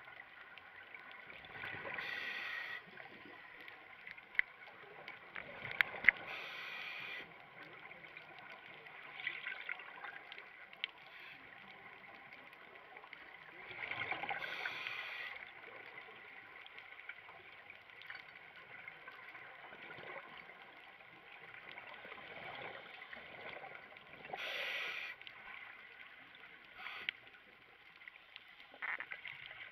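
A scuba diver breathes through a regulator, heard underwater: four bursts of exhaled bubbles several seconds apart over a steady faint hum. A few sharp clicks are also heard, the loudest about six seconds in.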